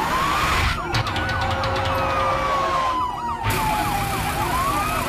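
Two emergency-vehicle sirens sounding together. One is a slow wail that climbs for about a second and a half, falls slowly for about three seconds, then climbs again near the end. The other is a fast yelp warbling about four or five times a second.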